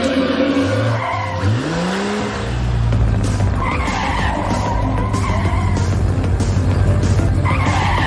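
Cartoon sound effects of car tyres screeching in two long squeals, with engine noise and a rising rev near the start, over background music.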